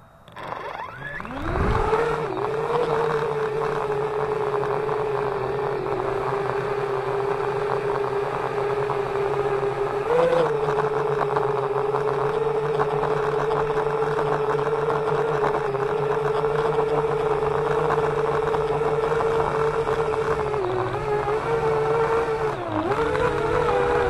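Parrot Bebop 2 quadcopter's four electric motors and propellers spinning up for takeoff, rising in pitch over the first two seconds, then a steady whine as it climbs and flies, heard from a camera mounted on the drone. The pitch wavers briefly a few times as it manoeuvres.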